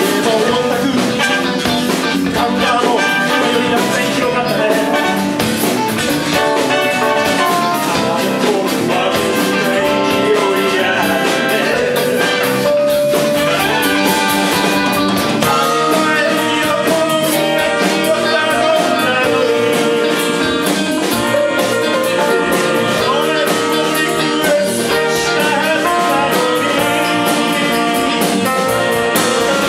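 Live band playing with saxophone, trumpets, electric bass, guitar and drum kit, and a male voice singing.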